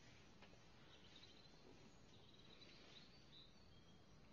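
Near silence: faint background hiss with a few faint, short high chirps.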